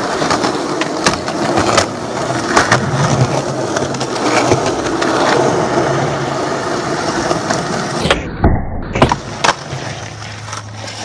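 Skateboard wheels rolling on asphalt, a continuous rough rumble broken several times by sharp clacks of the board popping and landing during flatground tricks.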